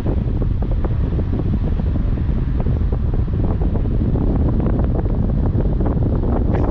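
Heavy wind buffeting the microphone of a camera on a moving car, a loud, steady low rumble with irregular crackle.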